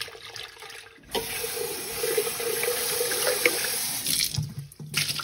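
Kitchen faucet running into a heavy glass blender jar, the water splashing and pouring out into the sink as the jar is rinsed. The water gets louder about a second in and turns uneven near the end as the jar is moved.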